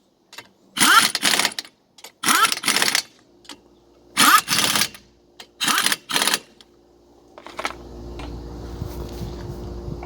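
Impact wrench rattling in four short bursts of about half a second each, spinning wheel lug nuts during a tire change. A steady hum sets in near the end.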